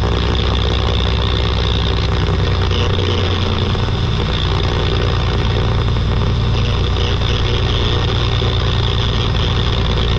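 Semi truck's diesel engine running steadily at low road speed, its low note shifting about three seconds in.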